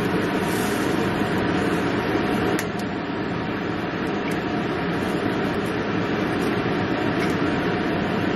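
Egg whites and eggs frying in a hot pan: a steady sizzle with scattered small pops, a little quieter after about two and a half seconds.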